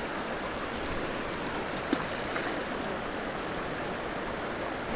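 Steady rush of flowing river water, with one brief plop about two seconds in as a groundbait ball lands in the water.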